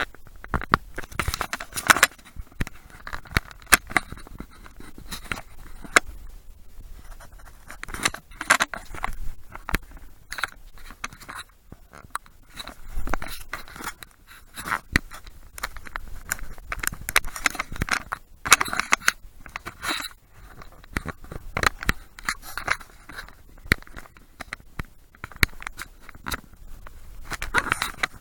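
Irregular scrapes, rustles and sharp clicks, the sound of a handheld action camera being handled and rubbed.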